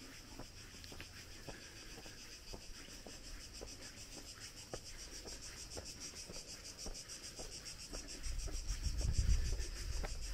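Cicadas in a steady, high-pitched pulsing chorus, with footsteps crunching on a stony path about twice a second. Wind rumbles on the microphone near the end.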